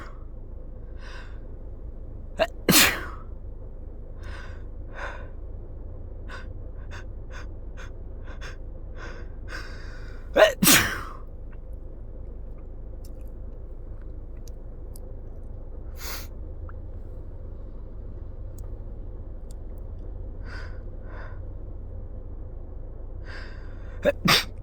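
A person with a cold sneezing hard three times: about 2.5 seconds in, about 10.5 seconds in, and near the end. Each sneeze comes as a quick sharp catch followed by the main sneeze. Many short, quieter breaths come in between.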